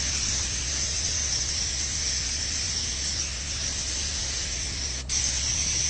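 Paint spray gun hissing steadily as it sprays epoxy primer, with a brief break about five seconds in.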